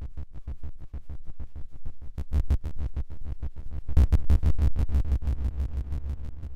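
Hardware-synthesizer FX sample: a fast, even pulsing of about eight hits a second over a deep bass, growing louder to a peak about four seconds in, then dying away near the end.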